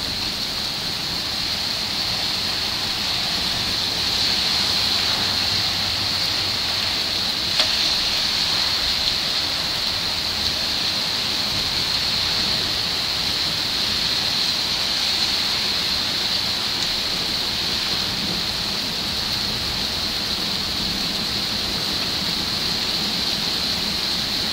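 Steady rain falling, a continuous even hiss, with one sharp click about seven and a half seconds in.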